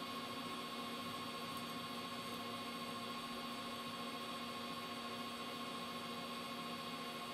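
Metal lathe running steadily while a parting tool is fed in by hand: an even hum with a faint high whine over hiss.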